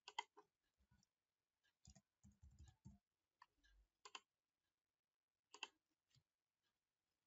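Faint computer keyboard keystrokes, a short run of about four or five taps, then two single mouse clicks about a second and a half apart.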